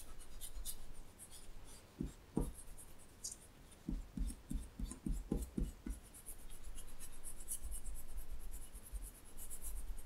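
A RubGum eraser rubbed back and forth over textured paper: a quick, steady scratching of short strokes. A few soft low knocks come about two seconds in, then a quick run of them between about four and six seconds.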